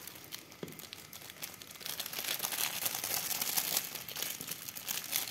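Plastic instant-noodle seasoning sachets being torn open and squeezed out over the noodles: a crinkling rustle full of small crackles, busier and louder from about two seconds in.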